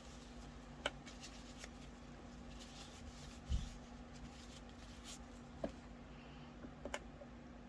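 Faint handling of small crafting tools and supplies at a work table: a few light clicks and taps, and a soft thump about halfway through, over a steady low hum.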